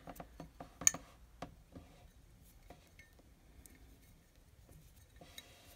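Faint clicks and light taps from handling a Fenton hobnail milk glass bowl, the sharpest a little under a second in, then only soft handling noise.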